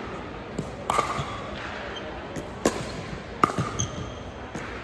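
Pickleball paddles striking a hard plastic ball during a rally: sharp pops with a short ring, the loudest about a second in, near three seconds and again half a second later, with fainter knocks between them.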